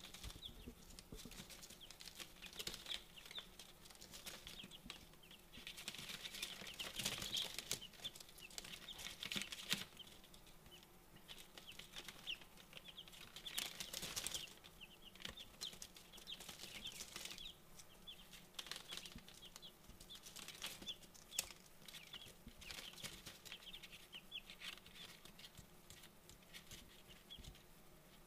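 Four-day-old silkie chicks peeping, many short high chirps overlapping. A few times the chirping thickens with bursts of scratching and rustling on the newspaper bedding.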